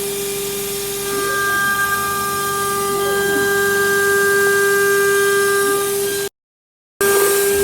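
CNC machine's spindle running at a constant speed with a steady high whine over a hiss while milling the jig; the sound drops out abruptly for under a second near the end.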